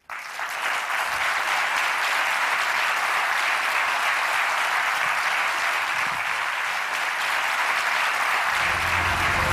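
Large audience applauding, starting all at once and holding steady throughout. Music comes in underneath near the end.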